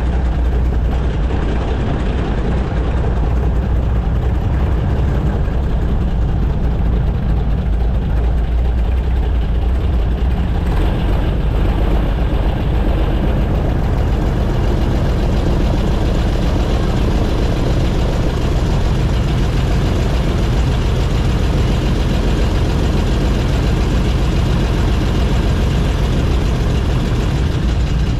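Airboat engine and propeller running steadily close by, a loud, unbroken low drone, growing a little brighter about halfway through.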